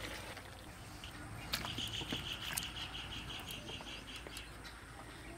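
A small animal calling outdoors: a rapid run of about a dozen short, high chirps, roughly five a second. It starts about a second and a half in, just after a sharp click, and lasts nearly three seconds.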